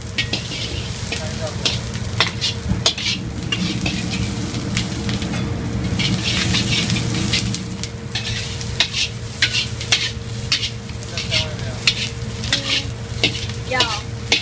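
Scallion pieces sizzling in hot oil in a wok, with a metal wok spatula scraping and clacking against the wok over and over as they are tossed, and a steady low hum underneath. This is the stage of frying the scallion whites until their aroma comes out.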